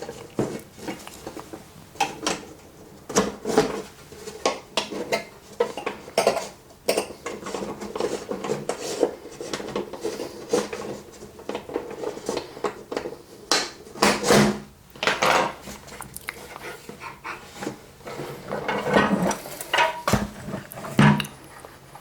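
Irregular metallic clicks, clinks and light knocks of a clock movement and its case being handled, as stiff small metal retaining tabs are bent over by hand.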